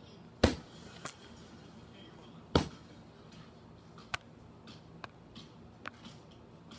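A dog gnawing on a hard chew held between its paws: a handful of sharp cracks and clicks a second or two apart, the two loudest in the first half.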